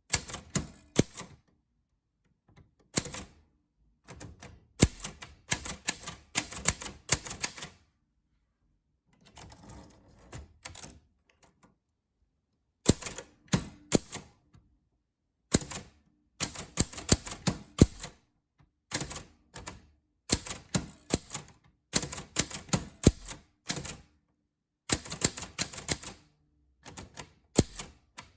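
Typewriter keys striking in quick runs of clicks, broken by short pauses of about a second. There is a softer, quieter stretch about a third of the way in.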